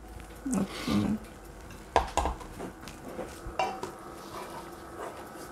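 Metal spoon stirring sauce in a stainless steel cooking pot, clinking against the pot's sides a few times, the sharpest clink about two seconds in.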